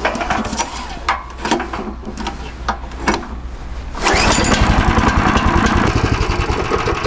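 Knocks and rattles, then about four seconds in the walk-behind tractor's Weima 13 hp engine is pull-started and catches, running with a steady, fast firing beat. The engine is running with a freshly fitted replacement cooling fan.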